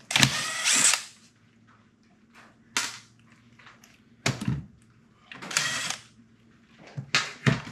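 A power driver spinning out the top-cover bolts of a 1939 Ford transmission in several short bursts, the first and loudest lasting about a second.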